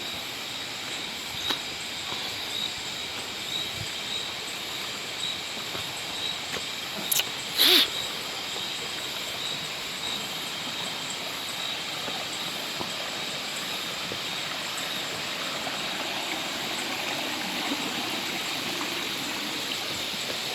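Steady rushing noise like running water, with a faint high steady tone over it. Two short sharp sounds stand out about seven and a half seconds in.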